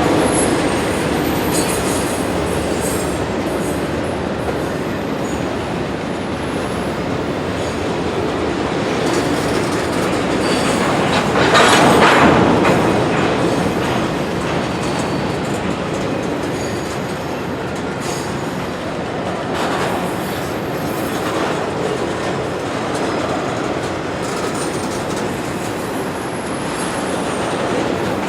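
Freight train cars rolling past steadily, steel wheels on rail with some squealing. The noise grows louder briefly about halfway through.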